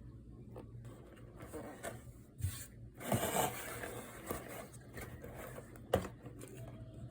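Small objects being handled: rubbing and scraping with a few sharp clicks, and a brief rustle about three seconds in.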